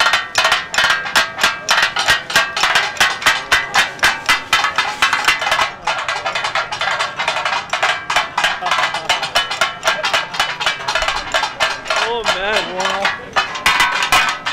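Metal spatulas clanking fast and rhythmically against large iron griddles as cooks chop and mix katakat, several stations going at once, a loud, steady metallic din. This is the tak-a-tak rhythm the dish is named after. A voice calls out briefly near the end.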